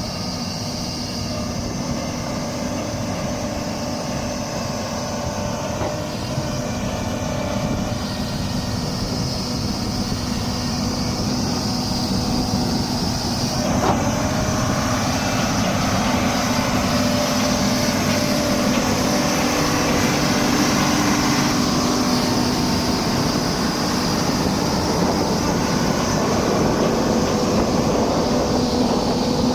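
Doosan 300LC-V hydraulic excavator running steadily with a held low engine tone, getting somewhat louder about halfway through, with a single knock near the middle.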